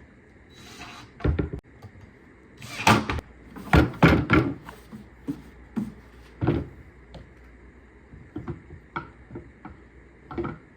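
A series of knocks and clunks from wooden pieces being handled and set down, loudest in a cluster about three to four and a half seconds in, then lighter scattered taps.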